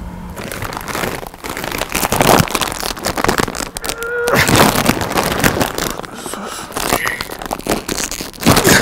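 Large plastic snack bag crinkling loudly in repeated bursts as a hand rummages inside it.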